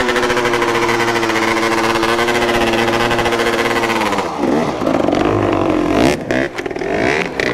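Dirt bike engine revved up and held at steady high revs for about four seconds, then dropping off and running unevenly with changing revs.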